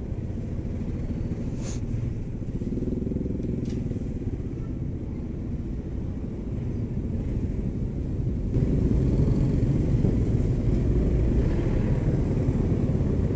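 Motorcycle engine running at low speed in heavy traffic, with other motorbikes and cars running close by. The rumble gets louder about eight and a half seconds in.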